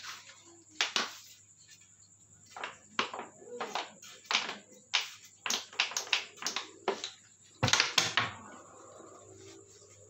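Irregular metallic clicks and knocks from parts of a Yamaha Mio Sporty engine's cylinder head and cam chain being handled and fitted by hand, more than a dozen of them, with a quick cluster near the end.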